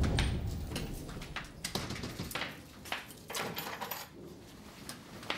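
A front door shutting with a low thud, followed by scattered clicks, knocks and rustling as things are set down on a cabinet top.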